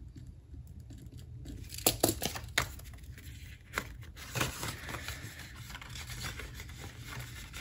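Paper banknotes and cash envelopes being handled: rustling and crinkling with a few sharp clicks and snaps, starting about one and a half seconds in.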